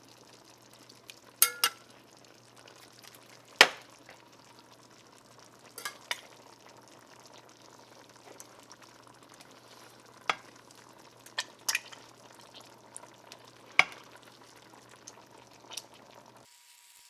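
A spoon knocking and scraping against a soup pot as tomatoes and browned beef are stirred, about ten sharp knocks spread irregularly, over a faint steady sizzle from the pot.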